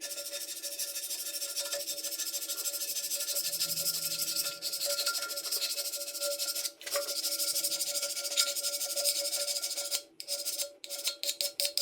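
Background music with a fast, shaker-like rattling rhythm over steady held tones, breaking off in several abrupt stutters near the end.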